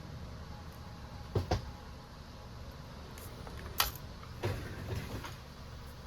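A handful of short, sharp clicks and light knocks, two close together, then one sharper click and two softer knocks, over a steady low hum. These are small hard objects, such as tools and phone parts, being handled and set down on a workbench.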